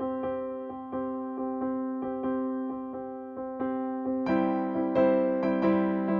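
Background music: gentle electric piano playing sustained chords, with notes struck about twice a second, growing fuller and louder about four seconds in.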